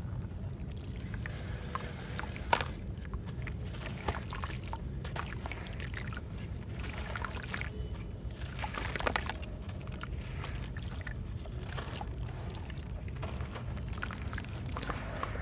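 Chunks of soft dried sand cement with white stones crumbling and breaking apart in water, with sloshing, trickling and scattered sharp crackles, one louder snap a couple of seconds in, over a steady low hum.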